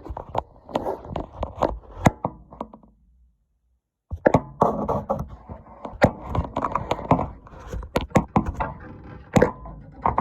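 Irregular clicks, knocks and scrapes of hands working on furnace parts while fitting a new hot-surface igniter, with a total dropout to silence for about a second a third of the way in.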